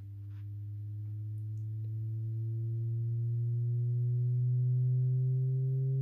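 A sine-wave test-tone sweep playing through a tablet's speaker: one low, pure tone slowly rising in pitch and growing louder over the first few seconds. It plays cleanly, with no popping or crackling.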